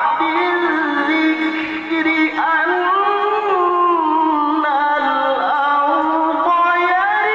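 A male Quran reciter's melodic recitation (tilawah), sung in long, ornamented held notes whose pitch glides up and down.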